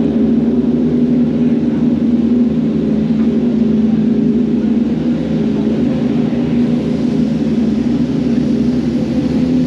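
A steady mechanical drone with a constant low hum that holds the same pitch throughout, from running engines or machinery.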